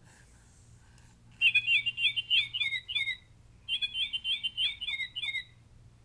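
Plush toy bird playing a recorded bird song through its small speaker: two runs of loud, repeated downslurred chirps, each about two seconds long with a short pause between, after a soft rustle of the toy being handled.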